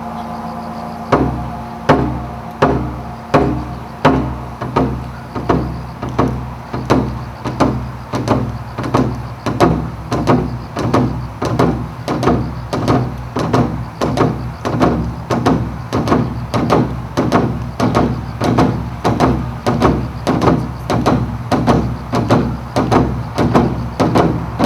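Percussion in a dance score: a deep-toned drum struck in a steady beat starting about a second in, gradually quickening from about one and a half strokes a second to about two.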